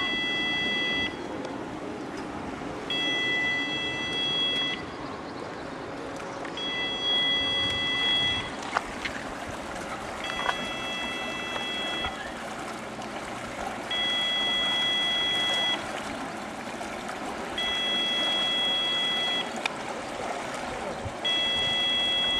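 Lock's warning buzzer sounding in long, even beeps, each about two seconds long and repeating every three and a half seconds, while the lock gate moves. Under it, water churns and rushes at the gate.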